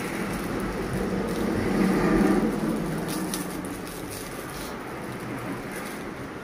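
Clear plastic packaging crinkling and rustling as a small accessory is pulled out of its bag by hand, the sharpest crackles about three to four and a half seconds in, over a low steady rumble.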